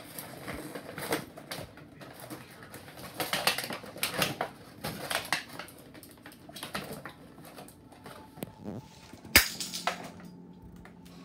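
Clear plastic blister packaging crinkling and crackling as it is handled and lifted, with the plastic balls in it rattling. One sharp, loud crack about nine seconds in.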